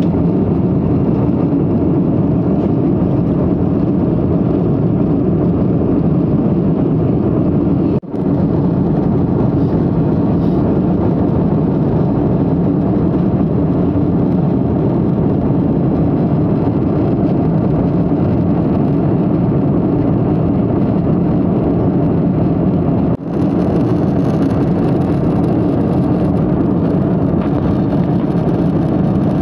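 Steady cabin noise of a jet airliner in flight, the engines and rushing air making an even low roar. The sound dips briefly twice, about a quarter of the way in and again about three quarters through.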